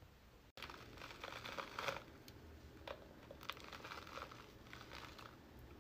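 Faint crackling and rustling as a layer of glue with trapped hair is peeled off the bristles of a paddle hairbrush, starting about half a second in, with a few small clicks.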